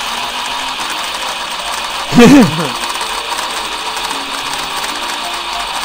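Electric motors and gearboxes of two Lionel O scale Thomas locomotives whirring steadily at full throttle as they push against each other, with a gear-and-ratchet chatter. About two seconds in, a short, loud pitched sound rises and falls over them.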